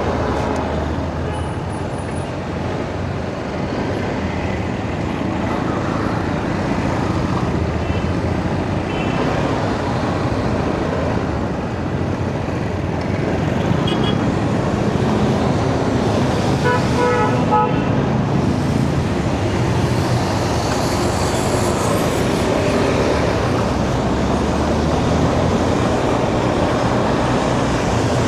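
Motorcycle riding in highway traffic: steady engine, wind and road noise. A horn gives a few short beeps a little past halfway.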